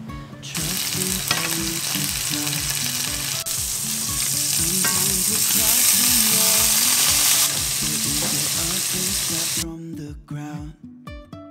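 Pieces of pork fillet sizzling in a hot frying pan. The sizzle starts about half a second in, grows strongest in the middle and cuts off suddenly near the end, over background music with a steady beat.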